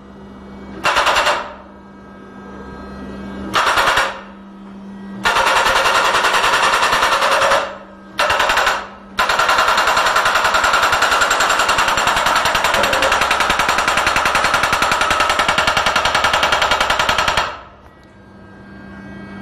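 Hydraulic hammer rapidly pounding a steel sheet pile into the ground in bursts: a few short ones, then a long run of about eight seconds from roughly nine seconds in. A steady machine hum fills the gaps between bursts.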